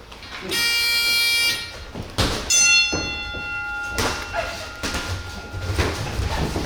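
Boxing round timer sounding: a steady electronic buzz for about a second, then a ringing bell tone that fades over about three seconds, with scattered thuds.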